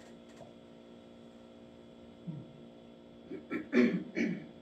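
Steady electrical mains hum of a small room. Near the end it is interrupted by a brief, indistinct burst of a person's voice.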